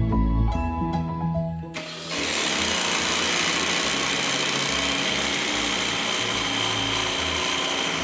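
Electric food processor running with its grating disc, shredding mozzarella cheese pushed down the feed tube. It is a steady whirring hiss with a faint high whine, starting suddenly about two seconds in, after light mallet-percussion background music.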